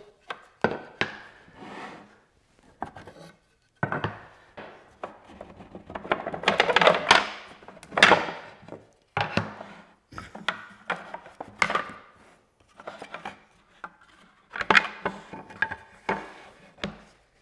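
Wooden boards and strips being taken apart from a dry-fitted, clamped frame and set down on a workbench: irregular knocks, clatter and rubbing of wood on wood.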